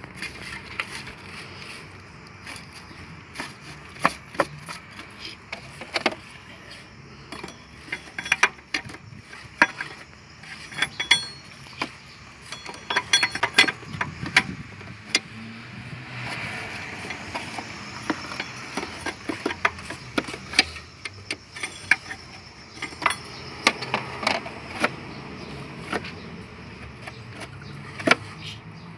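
Hand tools working on the fan clutch nut and cooling fan behind the radiator shroud. Irregular metallic clicks, knocks and scrapes come in clusters.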